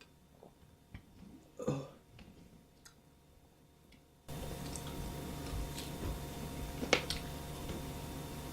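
Faint mouth and handling sounds of a person eating a raw lemon: small clicks and one louder wet sound about two seconds in. Past the middle the background hiss jumps up suddenly, with another short click a few seconds later.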